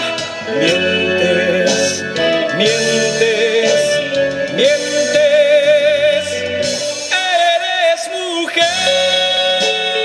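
Live band playing a romantic song: a male singer's held notes over electric guitar and band accompaniment.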